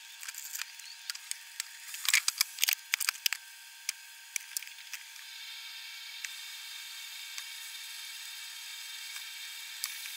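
Sliced onions sizzling in a frying pan, with sharp clicks and knocks as a wooden spatula turns them, busiest in the first half; the sound then settles into a steady sizzle.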